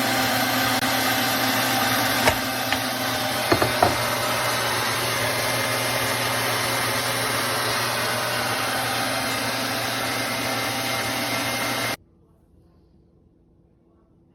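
Sunmile 1000 W electric meat grinder motor running with a steady hum, with a few sharp knocks about two to four seconds in. The motor is switched off about twelve seconds in and stops suddenly.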